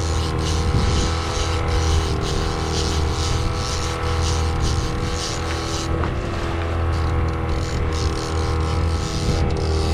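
Fishing boat's motor running steadily at trolling speed, a constant low hum with steady overtones and a pulsing hiss above it.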